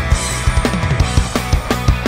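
Background rock music with a steady, fast drum beat.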